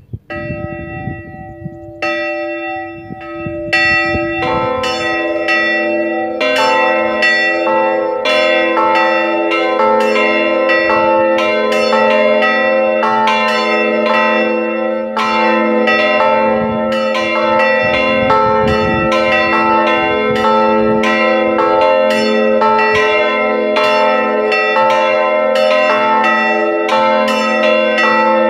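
Three swinging church bells in an open belfry ringing together in a full peal, rung as the call to Sunday mass. One bell starts at once, the other two join within the first five seconds, and from then on their strokes overlap in an uneven, continuous ringing.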